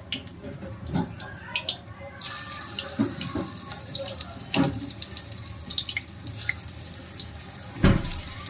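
Raw banana slices frying in hot oil in a kadai: a crackling sizzle that starts about two seconds in and carries on, with scattered small taps and one heavier knock near the end.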